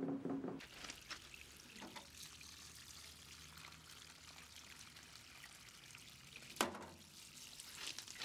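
Faint trickle of water dribbling from a plastic ice cube tray onto pebbles, with a few light knocks, the sharpest about six and a half seconds in.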